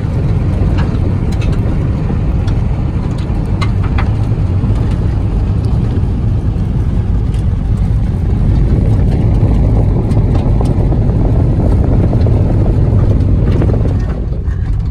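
Tyre and road noise inside a Toyota Yaris driving on a gravel road: a steady heavy rumble with scattered sharp ticks, swelling louder for a few seconds past the middle and easing near the end.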